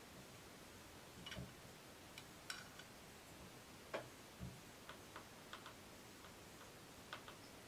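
Near silence with a scattered handful of faint, short clicks and taps from small objects being handled.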